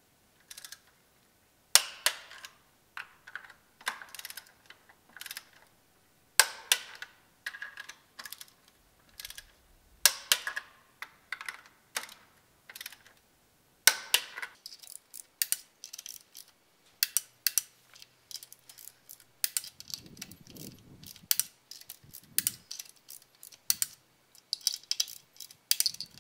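Ratchet and torque wrench clicking on the cylinder head bolts of a BMW M52 straight-six as they get their first-stage tightening to 40 Nm. Runs of quick ratcheting clicks, with a sharper, louder click every few seconds in the first half.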